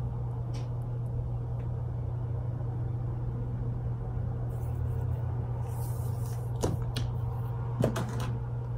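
Steady low hum, with a short rustle a little past the middle and two light knocks near the end, as a makeup palette is handled and set down.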